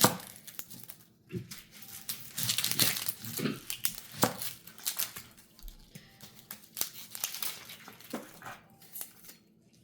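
Cabbage being cut and pulled apart by hand with a kitchen knife: irregular crisp crunching and crackling of the leaves, with a few knife knocks on the board.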